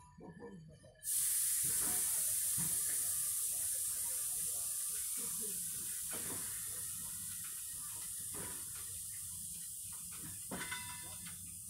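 Compressed air hissing from a passenger train's air brakes as the train starts to move. The hiss starts suddenly about a second in and slowly fades, with a few light knocks from the slowly rolling coaches.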